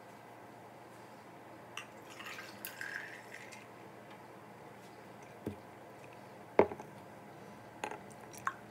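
A few sharp clicks and knocks, the loudest about six and a half seconds in, with a short hissing patch from about two to three and a half seconds in.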